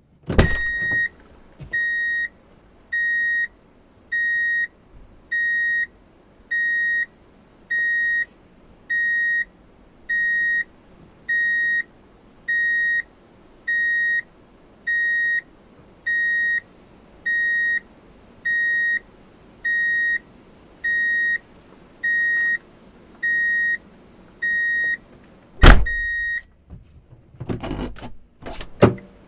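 Vehicle reverse-gear warning beeper sounding a steady high beep about once a second, each beep about half a second long; it signals the vehicle is in reverse. A clunk comes just before the beeping starts, and a loud thump and several knocks follow when it stops near the end.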